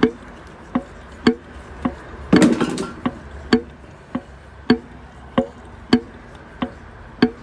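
Regular sharp metallic knocks, about one every half second, with a short scraping rattle about two and a half seconds in. They come from the piston and connecting rod of a torn-down Subaru STI 2.5 engine being worked back and forth to show play, the knock of a worn connecting rod bearing.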